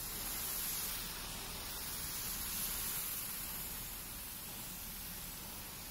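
High-pressure water jet from an Isuzu sewer jetting truck's hose hissing steadily as it sprays across pavement, a little louder for the first three seconds.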